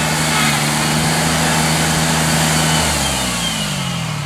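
Combine harvester engine running steadily under a broad rushing machinery noise, then slowing, its pitch falling over the last second and a half.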